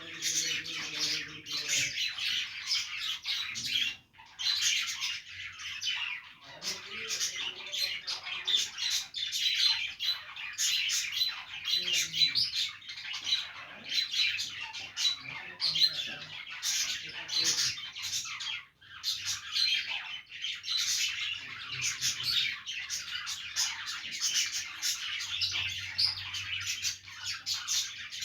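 Budgerigars chattering and warbling nonstop, with overlapping chirps, trills and sharp squawks. The chatter breaks off briefly twice, about four seconds in and again near the middle.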